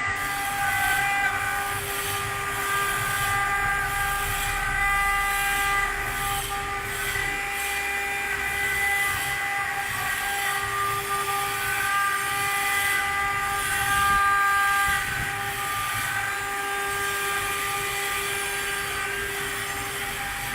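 CNC stone-engraving machine's spindle running with a steady high whine of several tones over a gritty hiss, as the bit cuts into stone.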